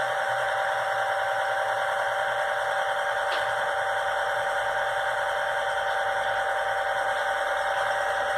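HO-scale model freight train running past, with a steady diesel-engine sound for its G22 locomotives played by an Arktrens sound system, over the whir of the cars rolling on the track. One light click a little over three seconds in.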